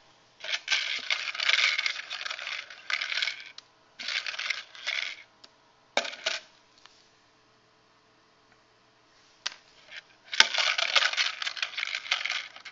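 Small plastic cubes rattling inside a plastic tub as it is shaken, in three bursts. About six seconds in there are a couple of sharp clicks as cubes drop onto the desk.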